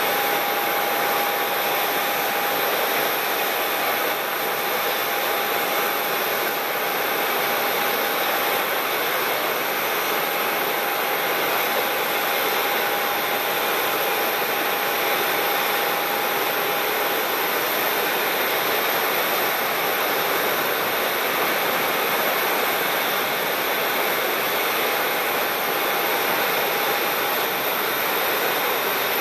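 ATR twin-turboprop airliner taxiing, its engines and propellers making a steady noise with a constant whining tone that fades out near the end.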